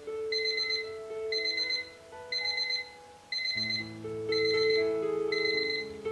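Alarm clock beeping in short rapid bursts, about one burst a second, over soft background music with sustained keyboard notes.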